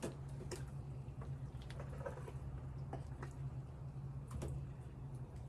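Faint wet clicks and squelches of bare hands pulling organs out of a chicken carcass, scattered irregularly over a steady low hum.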